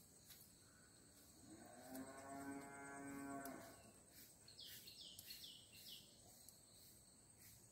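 A cow mooing once: a single long call of about two seconds near the middle, holding a fairly steady pitch.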